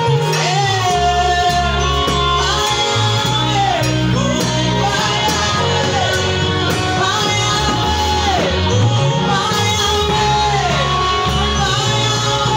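Live gospel song: a woman lead singer and a choir of girls singing through microphones over a band accompaniment with a bass line. The sung phrases are held, then fall away at their ends, about every two seconds.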